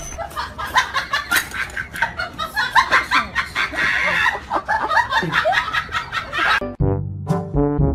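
Tabby cat making a rapid, irregular run of short clucking calls. Music comes in near the end.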